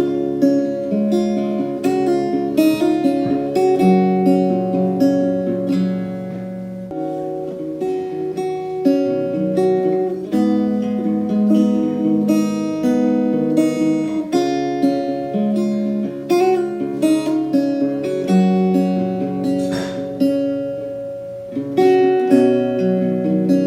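Acoustic guitar music: plucked and strummed chords.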